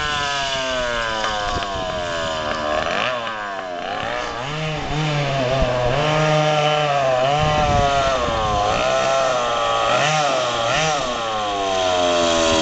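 Go-kart engine under changing throttle as the kart is driven along the street. Its pitch falls at the start, rises and falls several times through the middle, and drops again near the end.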